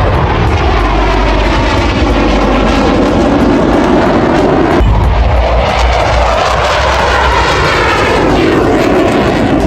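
Fixed-wing aircraft flying past, a loud, steady engine noise whose pitch bands sweep as it passes. The sound changes abruptly about halfway through and then sweeps again.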